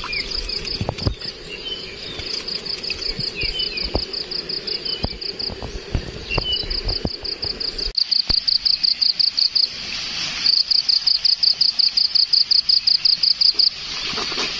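An insect calling with a high, pulsed trill of about six chirps a second, in runs that pause and start again, louder from about eight seconds in. Scattered light clicks and knocks in the first half.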